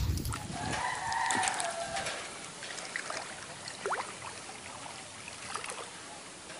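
A rooster crowing once, a wavering call of about a second starting about a second in, followed near the middle by a single short rising chirp.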